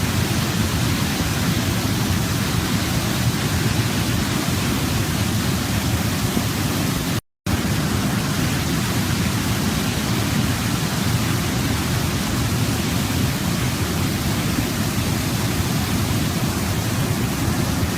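Waterfall: a steady, deep rush of falling water. The sound drops out completely for a fraction of a second about seven seconds in.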